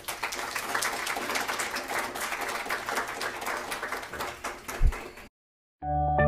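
Audience applauding, cut off abruptly about five seconds in; after a brief silence, music starts near the end.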